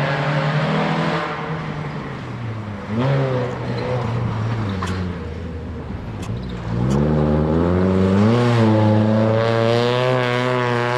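Rally car engine accelerating hard on a stage: the pitch drops as the driver lifts off, then climbs again twice, staying high and loud for the last few seconds.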